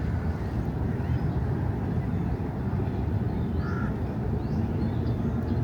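Steady low rumble of city traffic, with short high bird chirps several times in the second half.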